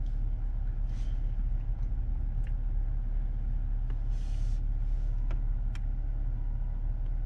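2019 Jeep Wrangler Rubicon's engine idling steadily, heard inside the cabin as a low rumble. A few faint clicks and a short hiss about four seconds in.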